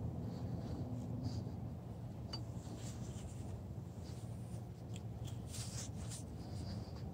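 Quiet woods ambience: a low steady rumble with a faint click a little over two seconds in, and a brief spell of scratchy rustling about five and a half to six seconds in.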